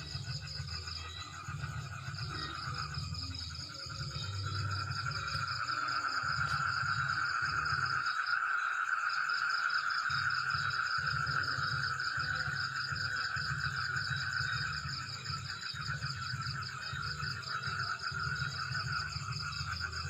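Steady chorus of calling insects: a high, fast-pulsing trill throughout and a lower trill that grows louder from about four seconds in and fades back near fifteen seconds, over a faint uneven low rumble.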